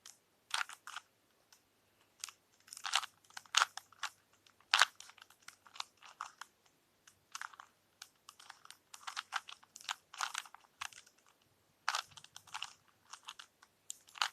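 Rubik's Cube being turned by hand: irregular runs of plastic clicks and clacks as the layers twist, with short pauses between the runs.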